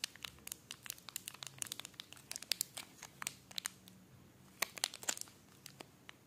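Plastic wrapper of a Cadbury Perk chocolate bar crinkling as it is handled and turned over in the fingers: a quick run of sharp crackles that thins out near the end.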